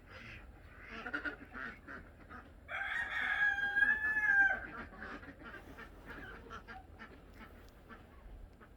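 A rooster crowing once, one long held call of about two seconds in the middle, louder than anything else, with short clucking and quacking calls from the chickens and ducks before and after it.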